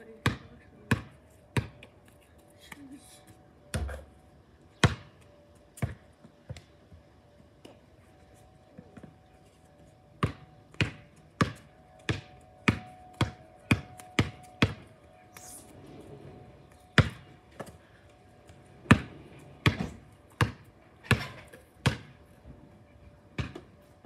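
Basketball bouncing on a concrete driveway: a long series of sharp single bounces at uneven spacing, about two a second in the quicker stretches, with a pause of a couple of seconds near the middle.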